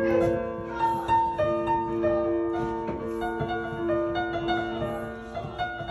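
Background music: a keyboard piece of held notes and chords, the melody moving note by note over a sustained low tone.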